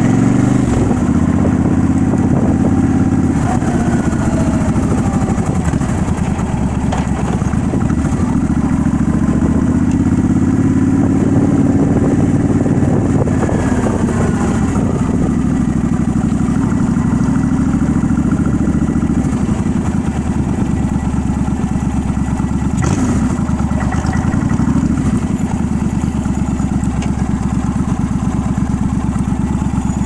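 Motorcycle engine running steadily, its pitch rising and falling a few times as it revs, with a sharp click about three quarters of the way through.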